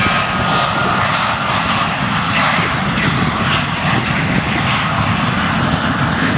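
Airplane engine running steadily as the aircraft flies by.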